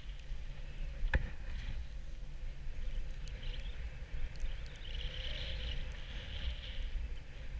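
Snowboard sliding and carving on groomed snow, the board's edge scraping steadily, with wind buffeting the action camera's microphone as a low rumble. A single sharp knock about a second in.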